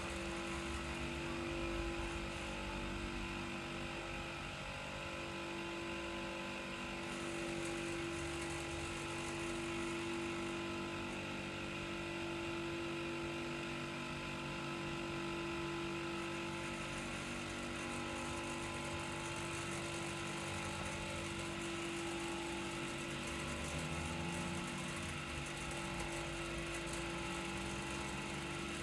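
Clarke Shhhh low-noise air compressor running: a steady, even hum from its motor and pump with one strong tone.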